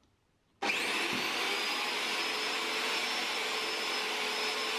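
Metabo TS250 table saw's bare universal motor, with no blade or gearing fitted, switching on about half a second in and running with a steady whine, wired straight to the mains without its soft-start circuit. The owner judges its rotor to be starting to die.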